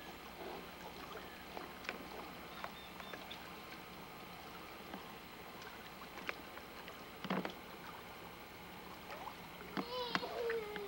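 Quiet lake ambience around a small boat: a faint steady hiss of water with scattered small clicks and knocks, one stronger knock about seven seconds in, and a brief wavering call near the end.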